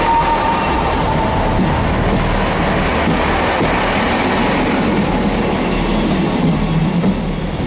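Northern Class 158 diesel multiple unit passing at close range, its diesel engine and wheels on the rails making a loud, steady noise. A thin whine fades out in the first couple of seconds, and the noise eases slightly near the end as the last coach goes by.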